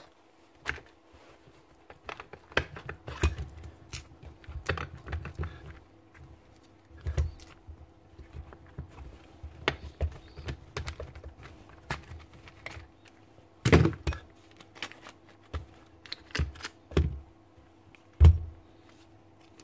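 Irregular clicks, rattles and knocks of a Makita BHP451 cordless drill's plastic housing and internal parts being pulled apart by hand and set down on a bench, with a few louder knocks in the second half.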